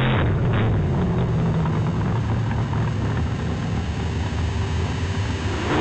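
Drag-racing car's engine running at a steady low rumble after a burnout, with a rough, noisy exhaust hiss over it.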